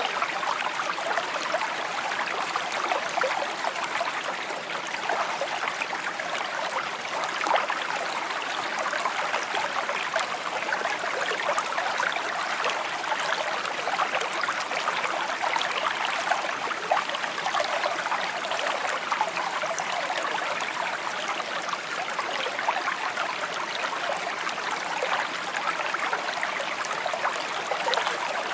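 Small stream trickling steadily over its bed: a continuous babble of many tiny splashes and gurgles.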